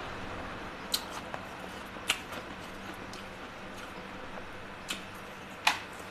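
Four short, sharp crunches of freezer frost ice, spaced out, the last the loudest, over a steady low hum.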